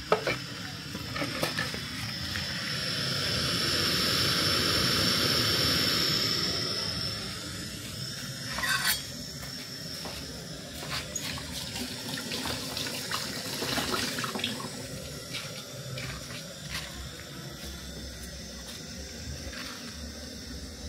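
Gas burner on a cooking-gas cylinder, just lit: a rushing hiss with a thin high whistle that swells over a few seconds and then fades. Afterwards, light clinks of plates and utensils.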